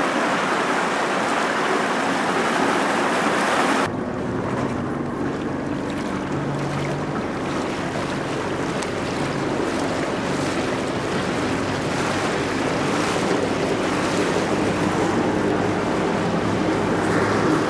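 Fishing boat underway: a steady engine drone under water rushing past the hull and wind on the microphone. About four seconds in, the bright hissing rush drops abruptly to a duller, lower one.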